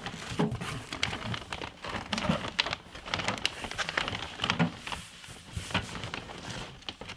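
Packaging rustling and crinkling as it is handled and opened, with irregular light knocks and clicks.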